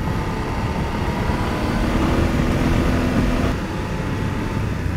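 BMW F750GS parallel-twin engine running under way on a gravel forest road, mixed with a steady rush of wind and tyre noise from the loose gravel. A faint engine tone comes up about a second and a half in and fades after about three and a half seconds.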